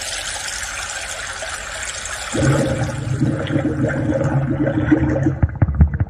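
Yamaha PSR-SX920 keyboard playing sound-effect drum-kit samples: a rushing, water-like noise that fades out, joined about two and a half seconds in by a low steady hum, then a quick run of sharp clicks near the end.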